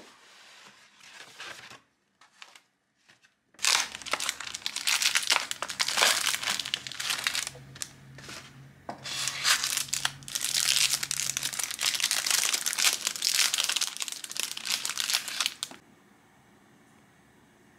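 Packaging crinkling as it is handled by hand: a few soft rustles, then loud, dense crinkling for about twelve seconds that stops near the end.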